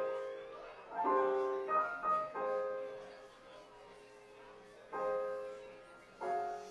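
Background music: slow piano notes and chords, each left to ring and fade, with a pause of about two seconds in the middle.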